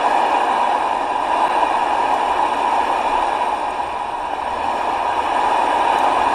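Steady FM static hissing from the small speaker of a promotional 'radio mic' FM radio, with no station received while its IF transformers are being adjusted.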